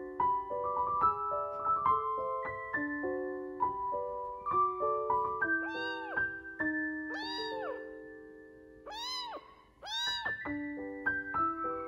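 A young kitten mewing four times in the second half, short high calls that rise and fall in pitch, over piano music.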